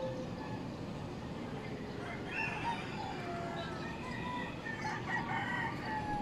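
A rooster crowing twice, each call ending in a falling pitch, over a steady low city hum.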